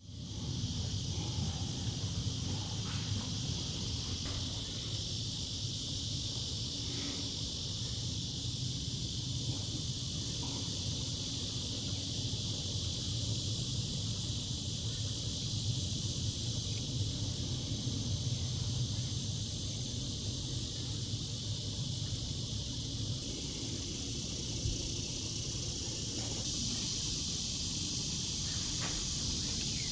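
Steady outdoor nature ambience: an even high hiss over a low rumble, with a few faint ticks and no clear bird song.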